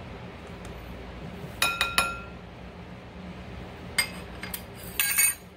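Metal spoon clinking against glass as powder is spooned into a glass mixing bowl: two sharp ringing taps about one and a half seconds in, then a quicker cluster of taps near the end.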